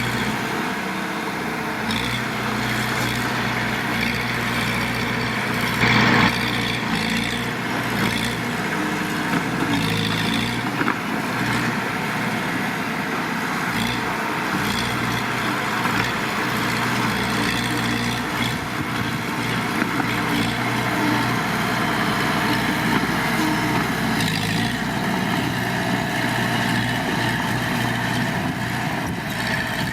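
Heavy diesel engine of earthmoving machinery running steadily, with a brief louder noise about six seconds in.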